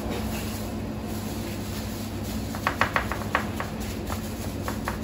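Soft clicks and taps of gloved hands scattering diced pizza toppings over dough in a steel baking tray, a quick cluster of them about three seconds in, over a steady low hum.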